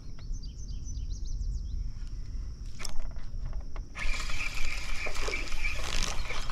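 Outdoor lakeside ambience: a steady high insect buzz with a few bird chirps over it. About four seconds in, it changes abruptly to a louder, even hiss.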